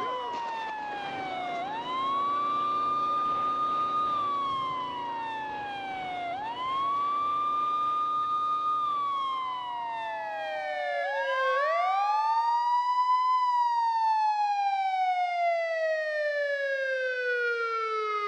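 Police car siren wailing: it holds a high tone, slides down, then sweeps quickly back up, about every four and a half seconds, over a steady low rumble. About eleven seconds in the rumble drops away, and the siren sweeps up once more before sliding slowly and steadily down.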